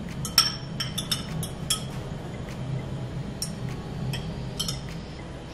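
A metal fork clinking lightly against a glass bowl of raw eggs, in a scattered series of irregular taps, as the fork twists through the eggs to pick out the stringy chalazae.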